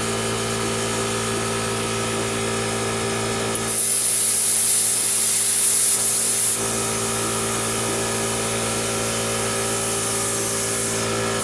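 Warfox plasma cutter and its compressed-air supply running with a steady hum and hiss. About four seconds in, a louder, hissier stretch lasts about three seconds as the torch cuts, then it settles back to the steady hum.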